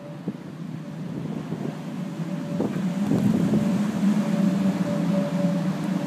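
Blizzard wind blowing against the microphone, with a steady hum from the iced-up pylon and its power lines. The sound builds over the first few seconds and then holds.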